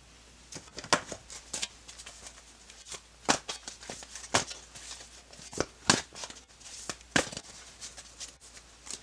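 Tarot cards being handled: a string of irregular, sharp card snaps and flicks, roughly one or two a second.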